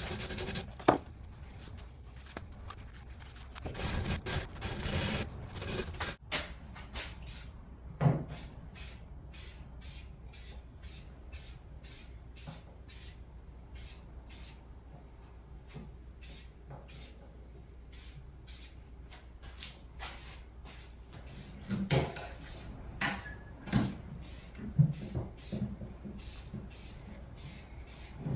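Metal tow hooks being handled and cleaned up for paint: scattered knocks and clatters of metal parts, with a stretch of hissing, scraping noise about four to six seconds in and a cluster of knocks near the end.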